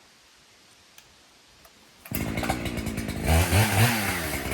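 Quiet at first, then about two seconds in a chainsaw comes in suddenly and loud, running at high revs, its pitch dipping and rising once near the middle as it works through the cut.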